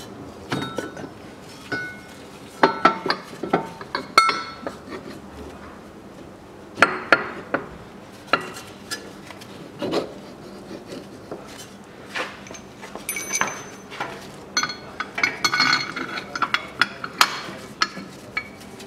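Steel engine-mount bracket and bolts clinking and knocking as they are fitted and hand-started: irregular sharp metallic clinks, coming thickest about three quarters of the way through.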